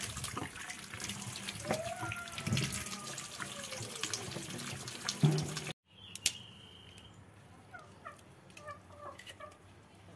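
Tap water running and splashing onto a plucked chicken carcass as it is rubbed clean in an enamel basin. The water stops abruptly about halfway through, leaving a few faint knocks.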